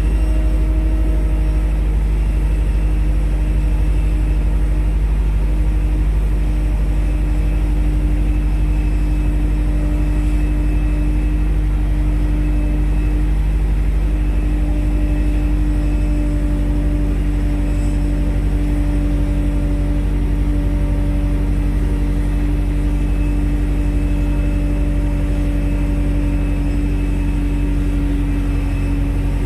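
Aircraft tow tractor's diesel engine running steadily under load while towing an ATR 72-600 turboprop: a heavy, even low drone with a steady hum that sags slightly in pitch.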